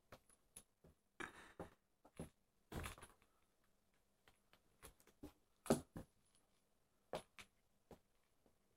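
Scattered soft scratches and taps on a cardboard box as a cat inside it swats through the holes at a furry toy dragged across the top. The sounds come in short clusters a few times, with quiet between.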